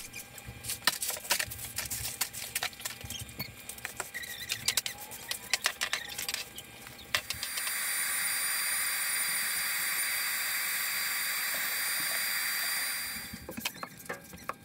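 Clattering and scraping of broken demolition debris being gathered off the floor. About halfway through, a stainless-steel wet/dry shop vacuum starts with a steady whooshing hum and a high whine. It runs for about six seconds, then stops, and light scuffing follows.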